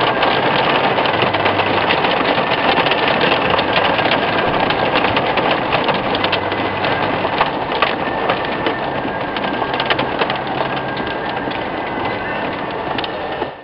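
Hailstones about 2 to 3 cm across pelting a car's roof and windscreen along with heavy rain, heard from inside the car: a loud, dense clatter of impacts over a rushing hiss, with a low steady hum underneath.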